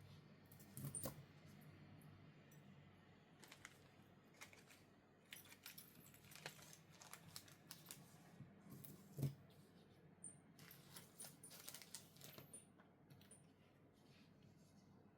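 Faint clicks and light clinks from handling a chronograph wristwatch and its packaging, with two louder knocks, one about a second in and one about nine seconds in.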